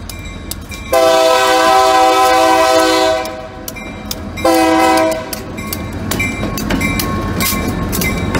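Diesel freight locomotive's air horn sounding a chord in one long blast and then a short one, the crossing warning for the road. A crossing signal bell dings steadily throughout. From the middle on, the EMD GP50 lead unit's engine and wheels rumble past close by.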